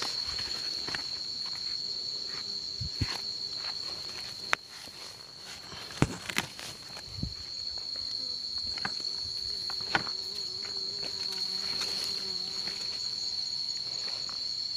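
Steady, high-pitched chirring of insects in the garden vegetation, unbroken throughout. Now and then it is cut by short clicks and rustles of plants being brushed or handled.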